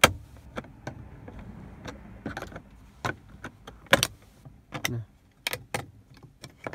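Sharp plastic clicks and snaps as the clear lens of a car's overhead dome light is pried off its housing with a flat-blade tool and handled. The loudest snaps come at the very start and about four seconds in.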